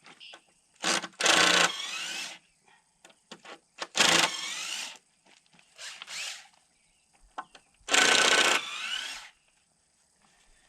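Handheld power drill running in short bursts, four times, its motor pitch rising within each burst, with light knocks and clicks in between.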